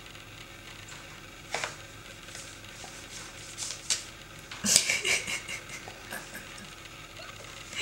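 Abyssinian kitten pouncing on a feather toy: scattered light taps and scuffs of paws, with a louder flurry of scrabbling a little past halfway through.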